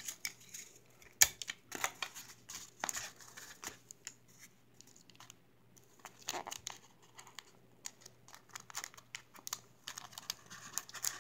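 Clear adhesive tape being pulled off its roll and torn, with the paper of the squishy crinkling as the tape is pressed down: irregular crackles and short rips, the sharpest about a second in.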